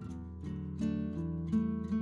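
Background music: an acoustic guitar playing a run of plucked and strummed notes.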